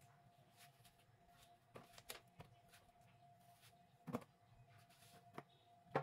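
A kitchen knife cutting watermelon wedges and knocking on a plastic cutting board: a few faint sharp knocks, the loudest about four seconds in and at the very end, over a faint steady hum.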